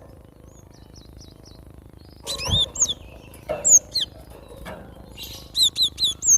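Cinereous tit (glatik batu) calling: faint high chirps at first, then loud sharp chirps in ones and twos, and a quick run of short high notes near the end.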